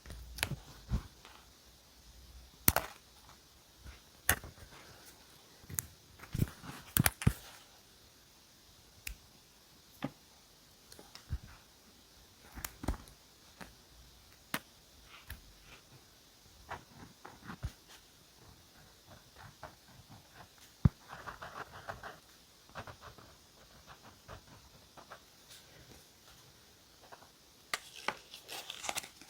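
Scattered light clicks and taps of stationery being handled and set down on a desk, with a short scratchy rustle of paper about three-quarters of the way through.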